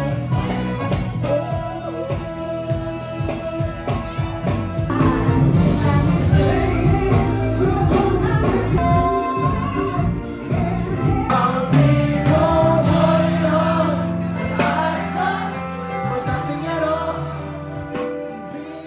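Live band music in a pub: a singer performing a song over keyboard and band accompaniment.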